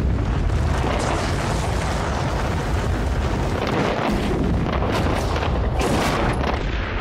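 Explosive demolition charges firing in the base legs of brick cooling towers: a loud, continuous rumble of blasts with several sharper cracks in the second half.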